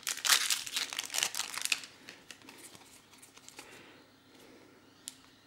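A foil trading-card booster pack wrapper being crumpled and torn open by hand, a dense crackling crinkle for about two seconds. Then only faint handling of the cards, with one small click near the end.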